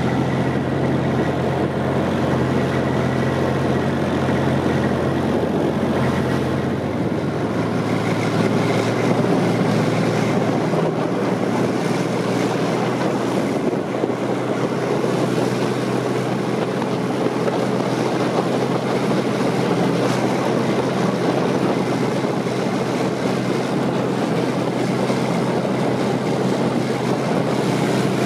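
Armoured military vehicle's engine running steadily as it drives, heard from on top of the hull with wind noise on the microphone. The engine's low hum shifts pitch about seven seconds in.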